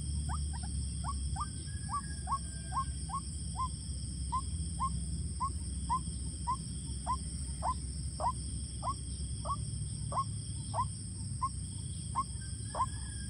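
White-breasted waterhen calling: a monotonous run of short, sharp notes, about two a second.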